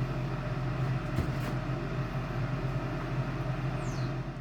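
Steady low mechanical hum, with a single short knock about a second in.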